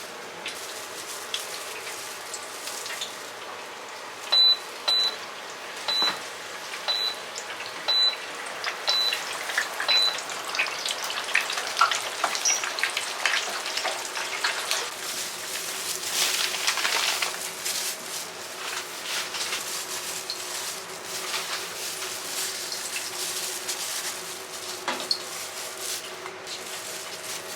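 Seven short, high electronic beeps, about one a second, from a kitchen or shop appliance, over a steady background hum with light clatter. A longer hiss, like steam or running water, swells and fades later.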